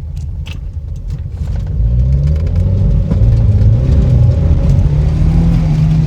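Volvo 940 Turbo's four-cylinder turbo engine accelerating under throttle. It grows louder and climbs in pitch about two seconds in, then holds a steady, loud drone. The engine has a fault that the owner says makes it run poorly and backfire below 4,000 RPM.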